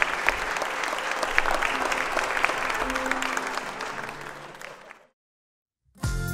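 Wedding guests applauding, many hands clapping, fading out to silence about five seconds in. Just before the end, music with a steady beat and bass starts abruptly.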